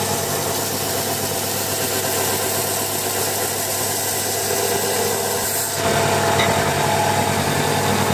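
Bench belt sander running steadily, with a small turned wooden ball held against the moving belt. The sound changes abruptly about six seconds in and carries on steadily afterwards.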